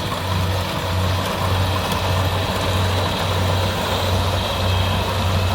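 Kubota DC70 combine harvester's diesel engine running steadily under load while it cuts rice, a constant low drone with the clatter and rush of the cutting and threshing machinery over it.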